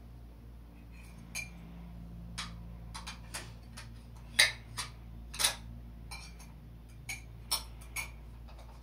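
Bangles clinking against a mug and bowl as a small child stirs and handles them: irregular light clinks, with two louder knocks around the middle.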